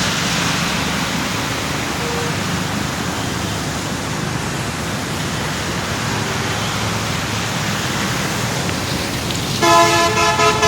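Road traffic driving through floodwater, a steady wash of engine and water noise, with a vehicle horn honking near the end.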